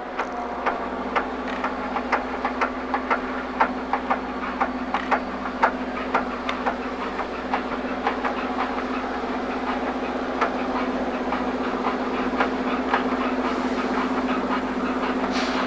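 A train rolling by, its wheels clicking sharply over the rails about twice a second at first and less often later, over a steady low drone.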